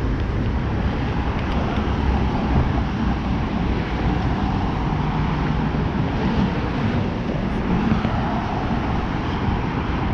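Steady rush of road traffic on a multi-lane highway passing beneath a pedestrian bridge.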